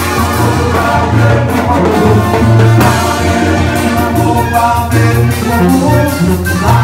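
A banda band playing live and loud, its trombones and trumpets over a heavy bass line.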